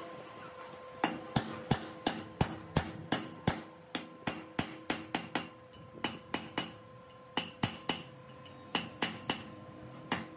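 Hand hammer striking a steel drift held on the valve guides of a tractor's cast-iron cylinder head. The taps are sharp and metallic, about three a second, and come in short runs with brief pauses, over a faint steady hum.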